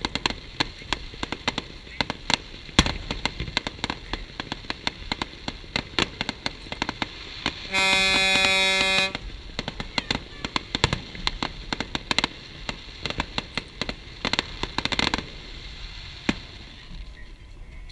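Fireworks bursting in a rapid, irregular run of bangs and crackles. About halfway through, a horn sounds once, a steady blast of about a second.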